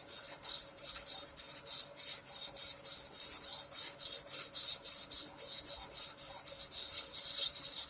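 Fine sandpaper on a fret-levelling beam rubbed back and forth over the metal frets of a Squier Stratocaster neck, a rhythmic scratching of about five strokes a second. It is taking down the high frets to level them.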